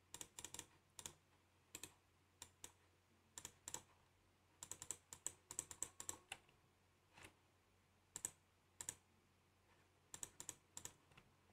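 Faint computer keyboard and mouse clicks, irregular and scattered, sometimes in quick runs of several, with near silence between them.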